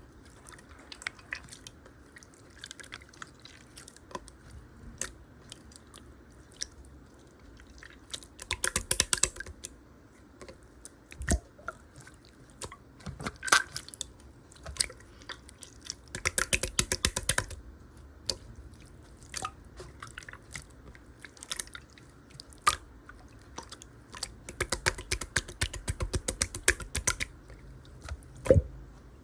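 Slime being squished and worked by hand: scattered wet clicks and pops, with three longer bursts of rapid crackling.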